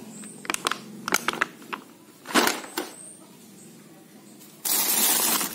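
Stiff plastic blister packaging of toy trucks clicking and crackling as it is handled, a scatter of sharp ticks. About four and a half seconds in, a loud plastic rustle starts as a tarpaulin bag is rummaged through.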